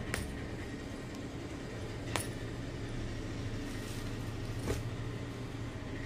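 Bangles on a wrist clinking briefly three times as hands unfold and handle a folded saree, over a steady low hum.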